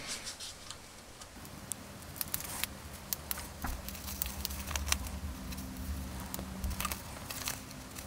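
Small embroidery scissors snipping a tiny hole through a paper pattern and looped fleece fabric: faint, irregular clicks of the blades.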